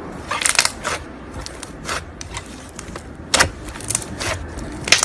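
Slime being squeezed and pressed by hand, giving irregular short crackles and pops, with the loudest clusters about half a second in, a little past three seconds, and near the end.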